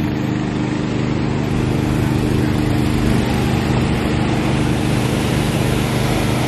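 An engine running steadily at an even speed, with a broad hiss of wind or movement over it that grows brighter about four seconds in.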